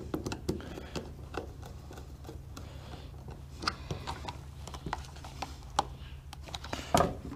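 Scattered small clicks and taps of electrical wiring work: a small screwdriver on the terminal screws of a hoist control box and wires being handled. A steady low hum runs underneath, and a louder knock comes near the end.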